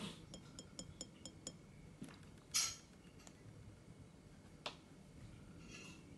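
Faint clinks of glass being handled: a quick run of about six light, ringing ticks in the first second and a half, then a louder clink about two and a half seconds in and a single sharp tap just before five seconds.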